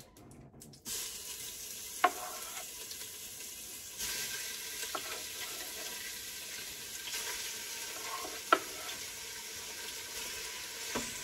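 Cubed raw chicken sizzling in hot olive oil in an Instant Pot on the sauté setting. The sizzle starts suddenly about a second in and gets louder about four seconds in as more chicken goes in, with a few sharp knocks of a wooden spoon.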